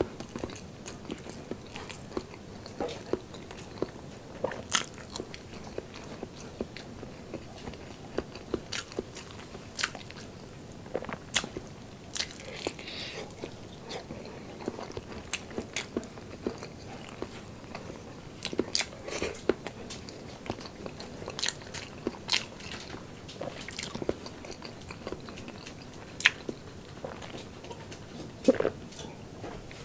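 Close-miked eating of braised pork knuckle: chewing with irregular sharp mouth clicks and smacks.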